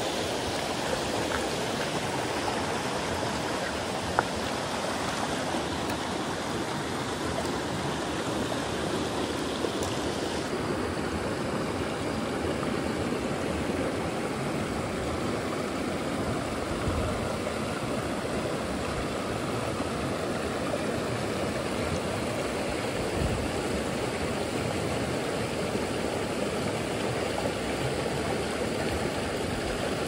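Mountain stream rushing over rocks: a steady, even rush of water that turns a little less hissy about ten seconds in.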